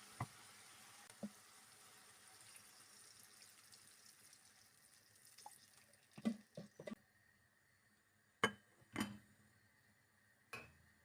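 Scattered light knocks and clinks of kitchenware being handled: about eight short taps, several grouped together midway and a few single ones later. Under them a faint hiss fades away over the first several seconds.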